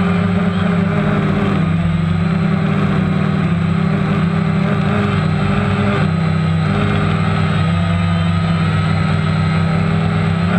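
Motors and propellers of a small radio-controlled aircraft, heard from the camera mounted on it: a loud, steady droning hum whose pitch shifts slightly now and then.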